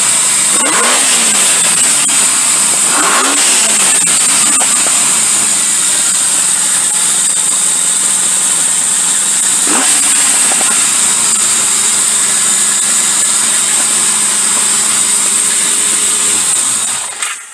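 1978 Yamaha XS1100's air-cooled inline-four engine, freshly rejetted and with its four carburettors synced, revved up and back down twice in the first few seconds and once more briefly about ten seconds in, otherwise idling smoothly. Near the end it dies away as it runs out of fuel.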